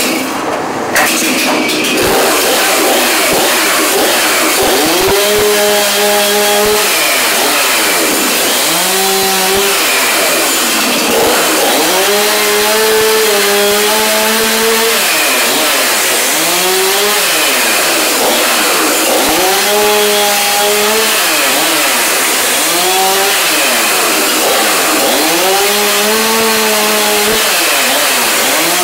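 Two-stroke chainsaw revved again and again, about seven times: each time the engine climbs to full speed, holds a second or two and drops back, as it is worked into a wooden desk.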